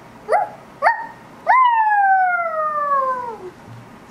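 Dog sound effect: three short rising yips, then one long howl that falls in pitch over about two seconds.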